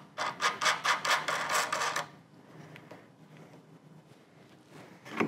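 Metal wing nut being spun by hand down the threaded stud of a Honda GX160 air cleaner: a quick, even run of rasping ticks, about five a second, for about two seconds, then faint handling.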